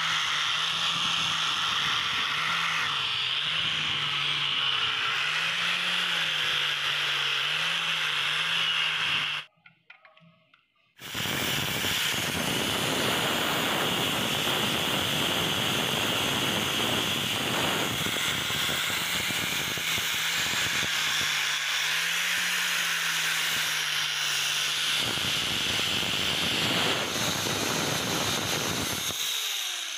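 Angle grinder with a red abrasive/polishing disc running against a steel pliers jaw clamped in a vise: a steady grinding hiss over a low, wavering motor hum. It cuts out briefly about nine seconds in, then resumes and stops just before the end.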